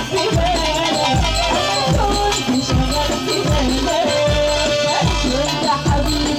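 Egyptian shaabi party music: an ornamented, wavering melody line over a heavy, steady drum beat, about two beats a second.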